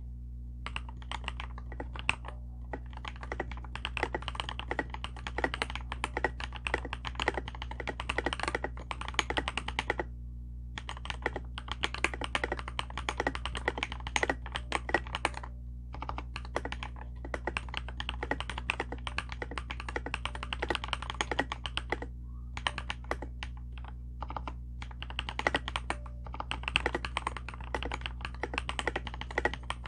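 Typing on a KBDfans KBD67 Lite 65% mechanical keyboard with lubed Durock POM linear switches and Tai-Hao doubleshot ABS keycaps: fast runs of keystroke clicks, with brief pauses about ten, sixteen and twenty-two seconds in. A steady low hum runs underneath.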